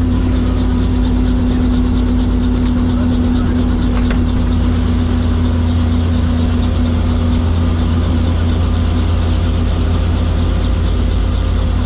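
Helicopter engine and rotor running steadily: a constant low drone with a steady hum over it.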